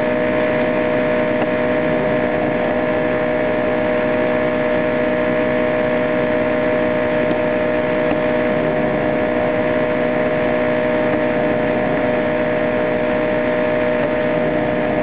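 Air compressor running steadily, a constant loud drone with a steady hum.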